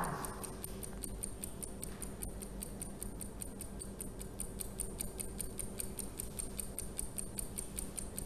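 Clock-ticking timer sound effect: rapid, even ticking, several ticks a second, counting down the time given to answer a quiz question.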